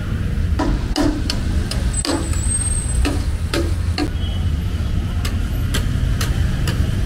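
Roadside street ambience: a steady low traffic rumble with irregular sharp clicks and clinks, and a brief thin high squeal about two seconds in.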